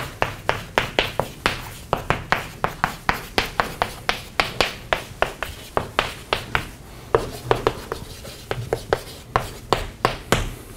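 Chalk writing on a chalkboard: a quick run of sharp taps and short scratches, about three to four strokes a second, as a formula is written out, stopping just before the end.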